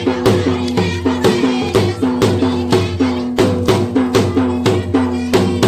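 Upbeat comedic music with a quick, steady beat of sharp percussion hits, about four or five a second, over a repeating plucky melody.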